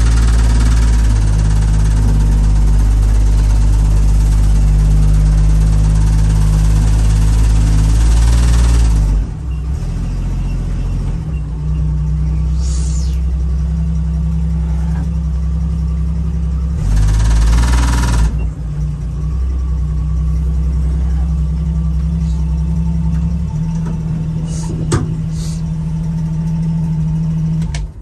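1975 AM General DJ5-D postal Jeep engine running under load while reversing uphill, with a loud buzzing vibration over it for about the first nine seconds and again briefly near the middle; in between and afterwards it runs more steadily. The noise comes only under load and sounds like a vibration rather than a mechanical knock; the owner suspects the flex plate or a vibrating muffler.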